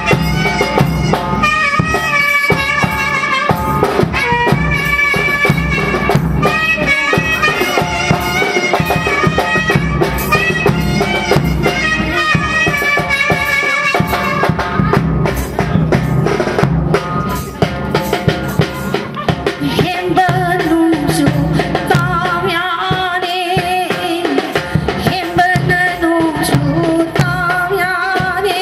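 Manipuri Lai Haraoba ritual music: a pena (bowed fiddle) melody over rhythmic percussion, joined in the last third by a woman's chant-like singing through a microphone.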